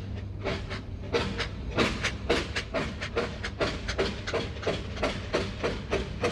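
Steam locomotive sound effect: a steady run of sharp, even chuffs, about three to four a second, over a low steady hum.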